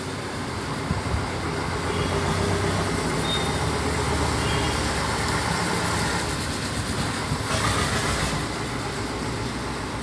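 Steady background rumble with a low hum, like traffic or machinery, and a brief louder hiss about three-quarters of the way through.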